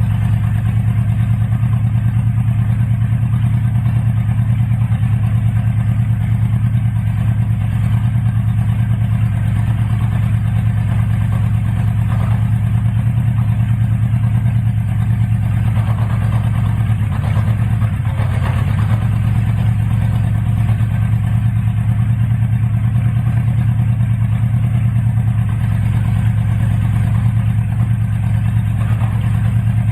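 Honda CB550F's air-cooled inline-four engine idling steadily on freshly adjusted carburettors.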